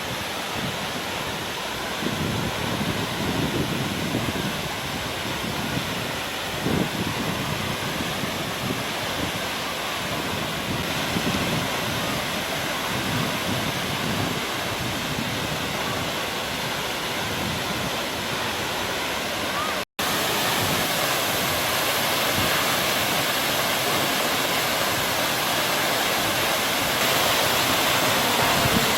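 Jeongbang Waterfall, a coastal waterfall dropping onto the shore, pouring with a steady, dense rushing of water. A brief break comes about two-thirds of the way through, after which the rushing is a little louder.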